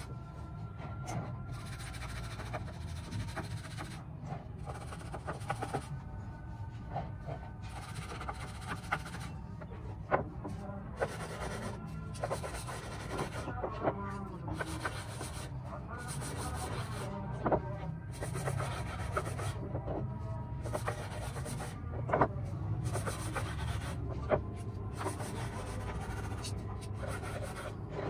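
Hand-sanding a carved wooden clock dial with sandpaper: continuous scratchy rubbing over a steady low rumble, with a few sharp knocks as the wood is handled.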